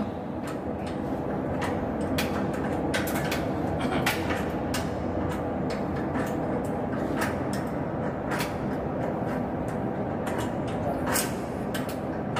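Irregular sharp metal clicks and clinks of hand tools working the mounting bolts of a blower fan motor against its steel housing flange, over a steady low machinery rumble.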